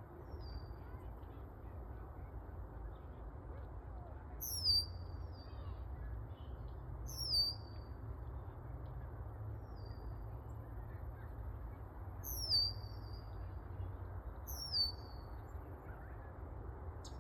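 A songbird calling: short high whistles that slide down in pitch, four loud ones a few seconds apart with fainter ones between, over a steady low rumble.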